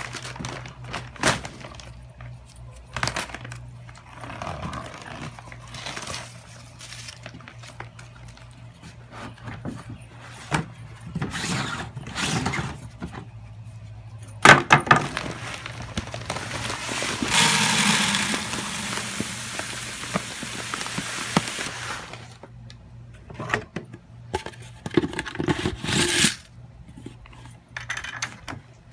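Assorted clinks, scrapes and knocks of objects being handled, with a loud knock about halfway through and a steady rushing noise for about five seconds after it.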